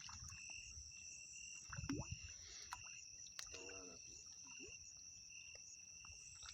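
Insects chirring steadily in two high-pitched tones, the lower one pulsing in short regular chirps. A few faint clicks and a brief low call, a little past the middle, sound over it.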